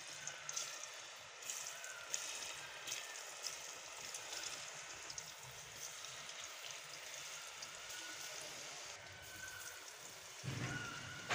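Potato fries deep-frying in hot oil in a metal karahi: a steady bubbling sizzle with fine crackles, as fresh handfuls of raw fries go in. The sizzle surges louder near the end.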